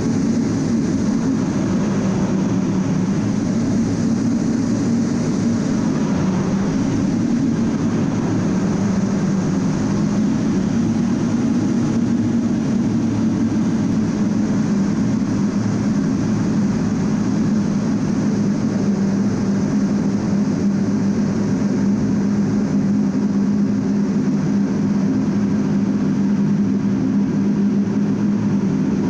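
Steady cockpit noise of an A-10 Thunderbolt II in flight: a constant low drone from its twin General Electric TF34 turbofan engines under a wide rushing noise, holding level without change.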